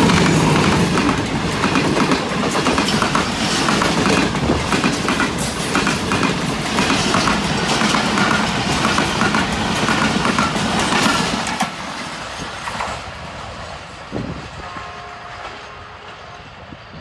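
An express passenger train passing close by at speed: the diesel locomotive's engine hum at first, then the coaches rolling past with a rapid clicking clatter of wheels on the rails. About twelve seconds in the sound drops and fades as the last coach moves away down the line.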